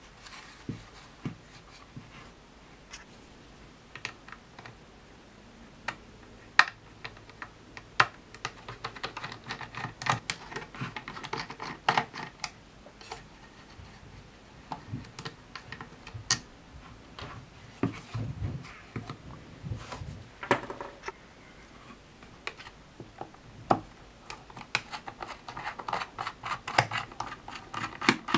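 Plastic clicking, tapping and scraping as a small tool is worked around the cones of a Dyson DC62 vacuum's cyclone assembly and the assembly is turned in the hands. Irregular sharp clicks, with stretches of quick scratching and a few dull handling bumps.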